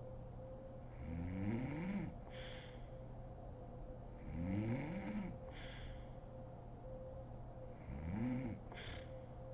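A woman snoring in deep sleep: three snores about three and a half seconds apart, each rising in pitch and followed by a short breathy hiss.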